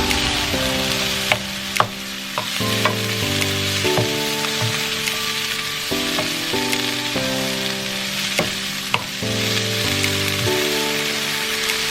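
Food sizzling as it fries in a pan, with a few sharp clicks of a utensil stirring it. Soft background music plays underneath.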